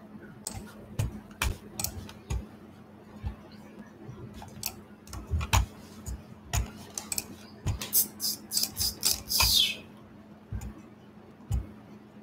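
Irregular clicks and taps of a computer keyboard and mouse being worked, with a quick flurry of clicks about eight seconds in, over a faint steady electrical hum.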